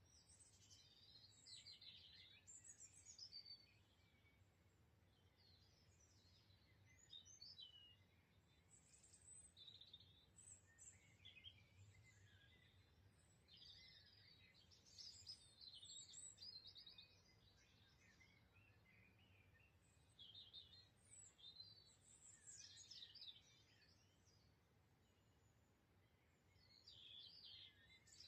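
Dawn chorus: several songbirds singing faintly in short, overlapping warbling phrases, over a faint low background hum.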